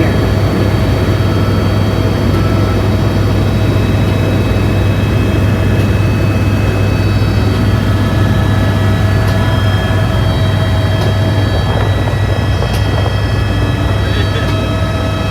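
Helicopter cabin noise in flight: the turbine engine and rotors make a loud, steady drone with a strong low hum and several steady high-pitched whines.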